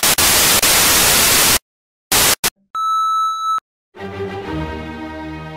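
Television static hiss that cuts in and out, stops sharply about a second and a half in, then returns in two brief bursts. A single steady beep follows, just under a second long, and from about four seconds in slow string music with held notes comes in.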